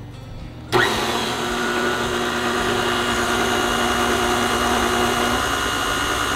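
KitchenAid stand mixer switched on about a second in: the motor spins up quickly and then runs steadily, its beater turning through flour and water at the start of kneading bread dough.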